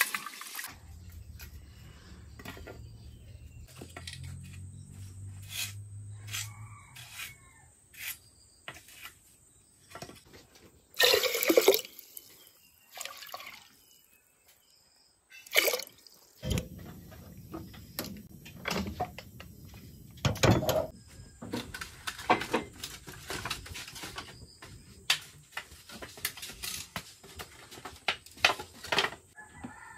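Rice being washed by hand in a pot of water: irregular sloshing, splashing and dripping as fingers stir and rub the grains.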